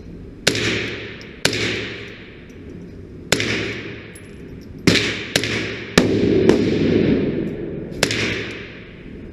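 About eight .22 LR rimfire shots at an uneven pace, one every half second to two seconds, each with a long echoing tail.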